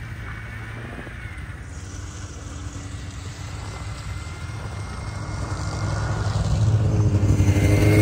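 Snowmobile engine running as it draws closer, growing steadily louder toward the end.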